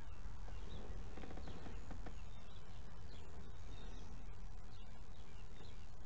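Steady outdoor background noise with faint, scattered bird chirps in the distance and a few small clicks.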